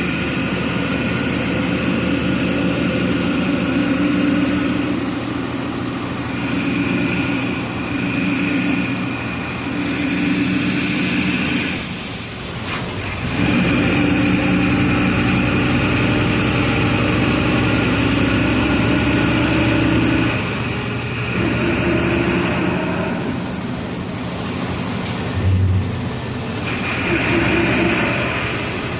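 Volksbus 17-230 EOD bus's diesel engine running under way, its revs rising and falling several times, with a short lull about twelve seconds in.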